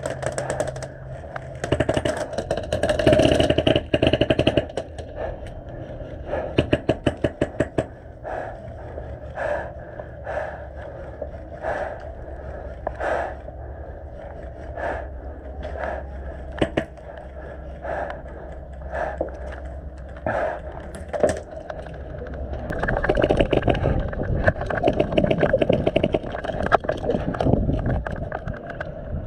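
HPA airsoft rifle firing fast strings of semi-auto shots for the first several seconds, then single sharp cracks about once a second. Near the end, rough noise of running footsteps and movement takes over.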